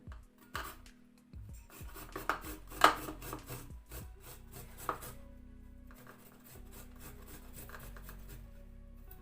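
Kitchen handling sounds of food preparation: irregular knocks, taps and rubbing as a raw whole chicken and its seasonings are worked by hand, the sharpest knock about three seconds in. After about five seconds only faint steady background music remains.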